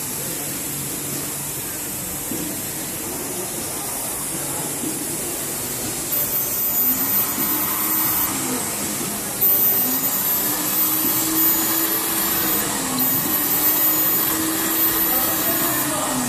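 Hanfor ultrasonic fabric-bonding machine running with a steady whir while sportswear fabric is fed through it. A thin, high whine comes and goes from about halfway through, and the sound gets slightly louder there.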